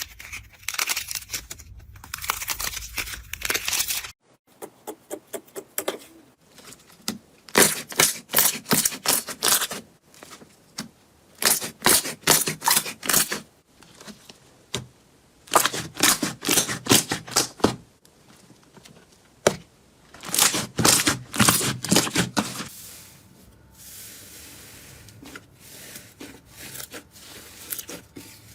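Slime being pressed and worked by hand, giving rapid crackling clicks and pops in bursts of one to two seconds, separated by short quieter pauses; the last few seconds are softer.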